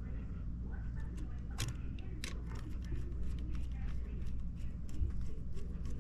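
Screwdriver tightening a wire under the terminal screw of an outlet receptacle: a scatter of small sharp clicks and ticks, two louder ones in the first few seconds, over a steady low hum.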